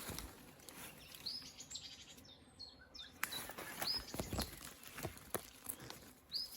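A small bird calling short, high, upward-sweeping chirps, about half a dozen spread through, over faint rustling with a few sharp crackles.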